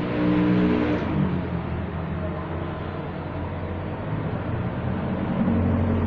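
A motor running steadily with a low hum that swells louder in the first second and again near the end.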